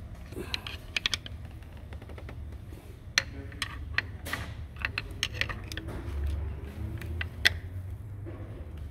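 Irregular light clicks and taps of hand tools and a pin tool knocking against the timing-belt sprockets and engine parts, over a low steady hum.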